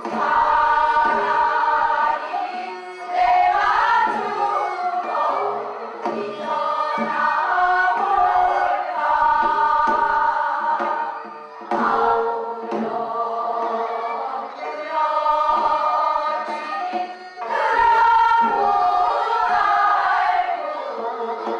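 A group of voices singing together in Korean folk-song style, in long held phrases of a few seconds each with short breaks between them.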